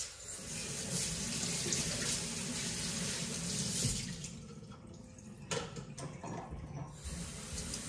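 Tap water running into a sink while a hand-blender part is rinsed under it. The flow drops off for a couple of seconds past the middle, with two knocks, then runs again.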